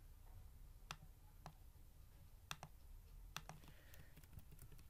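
Faint, scattered clicks of a computer mouse and keyboard keys, several in all at uneven intervals.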